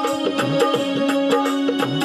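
Casio portable electronic keyboard playing a Hindi film song melody in sustained lead notes over the keyboard's own automatic rhythm accompaniment. The accompaniment keeps a steady beat with gliding low drum notes.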